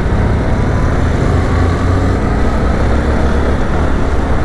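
Yamaha R15M single-cylinder motorcycle engine running steadily while riding, with wind and road noise rushing over the microphone.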